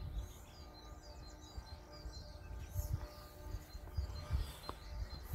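Small songbirds chirping in quick, repeated high notes, with uneven gusts of wind rumbling on the microphone.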